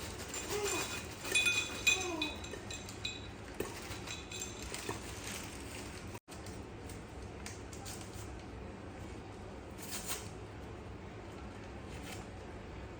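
Dishes or glassware clinking several times in the first three seconds, the strikes leaving short ringing tones, followed by scattered lighter knocks.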